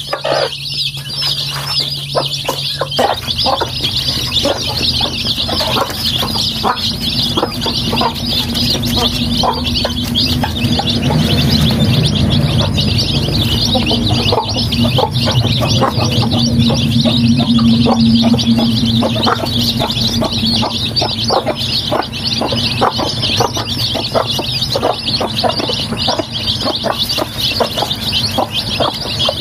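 A brood of young chicks peeping continuously in a dense high chorus, with short clicks among the calls. A low steady hum runs underneath and swells in the middle.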